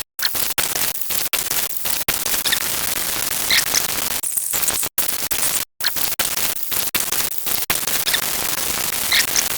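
Loud, harsh static noise across all pitches that cuts out abruptly for split seconds several times, with a few brief warbling tones high up.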